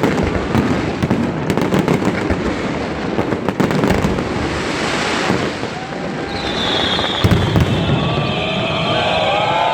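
Aerial fireworks bursting in a dense barrage of bangs and crackling. The bangs thin out about six seconds in, and a crowd starts cheering and whistling near the end.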